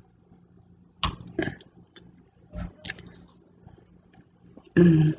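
Eating sounds: a fork clicking and scraping against a dinner plate a few times, with chewing, then a brief vocal sound from the eater near the end.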